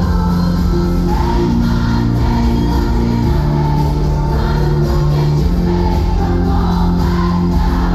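Loud live pop music: a woman singing over drums and sustained synth bass, heard from among the audience in the hall.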